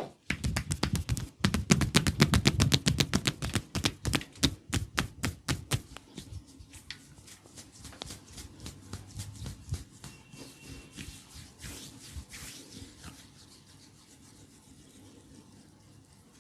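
Massage strokes on bare skin: a fast run of rubbing, slapping strokes, several a second. They are loud and dense for the first six seconds, then slower and fainter, dying away near the end.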